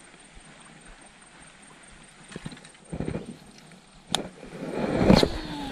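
Faint outdoor background, then from about two seconds in, rustling and knocks of a baitcasting rod and reel being handled close to the microphone, with a sharp click about four seconds in and louder rustling near the end.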